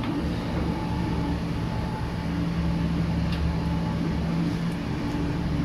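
Steady machinery hum at one constant pitch over a low rumble, with a faint click about three seconds in.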